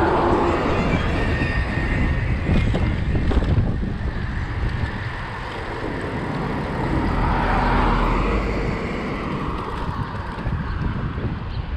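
Street noise heard from a moving bicycle: wind rushing over the microphone and motor traffic going by, with one vehicle swelling past about seven to eight seconds in.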